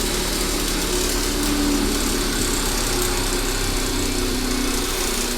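Electric grinding wheel running steadily with a constant motor hum, the wheel spinning without a tool against it.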